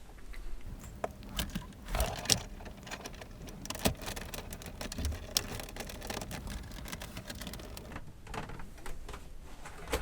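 Cables and plugs being handled and fitted to a computer: scattered small clicks, knocks and light rattles, with a few sharper clicks about two and four seconds in.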